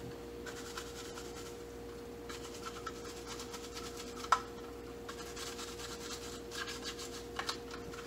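Scrub brush scrubbing the plastic parts of a pet water fountain in short, repeated scratchy strokes, with one sharp click a little past the middle.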